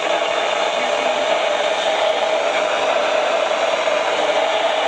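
Steady hiss and static from a weather radio receiver, an even noise with a stronger band in the lower mid range.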